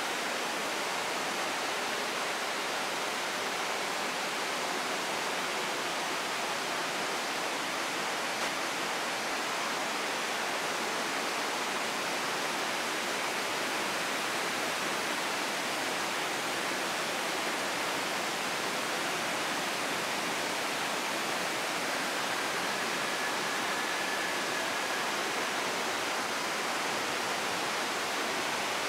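Steady rush of a river's flowing water, an even hiss that does not change.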